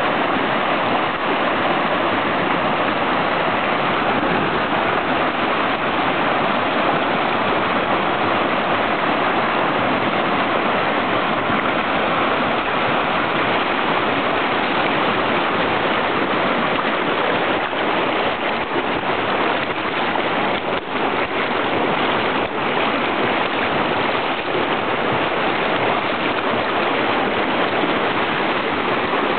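Shallow rocky stream rushing over stones and small rapids: a steady, continuous rush of water.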